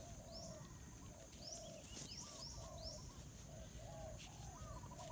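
Faint bird calls: a run of short low notes about twice a second, with a few high, quick upward-sweeping chirps in the first half.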